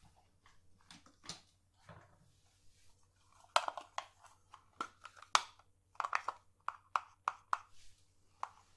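Makeup products and their containers being handled: a few faint clicks at first, then from about three and a half seconds in a quick, irregular run of sharp clicks and taps.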